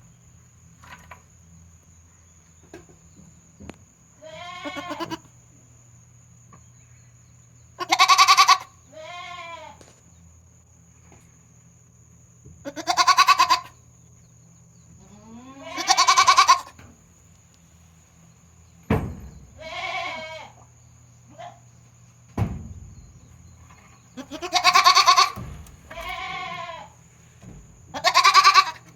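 Goat kid bleating over and over in a strange voice, about nine separate calls a few seconds apart, some of them falling in pitch as they end. Two sharp knocks come partway through.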